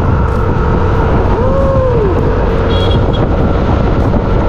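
Road noise from a vehicle on the move: a loud, steady rumble of engine and wind. A short tone rises and falls about a second and a half in.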